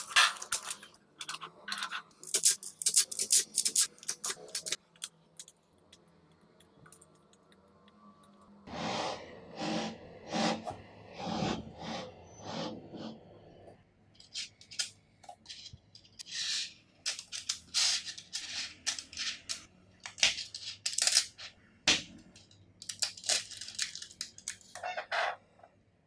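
Small magnetic balls clicking and snapping together as hands pull apart and assemble them, in quick clusters of sharp clicks. A denser clatter of balls runs for several seconds in the middle.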